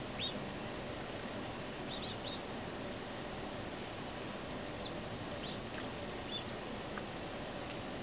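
Steady wind noise with short high chirps from small birds at a window-mounted feeder, scattered through, three in quick succession about two seconds in.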